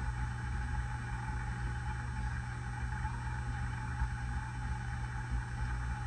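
Hunter low-profile ceiling fan running steadily: a constant motor hum with air noise from the spinning blades.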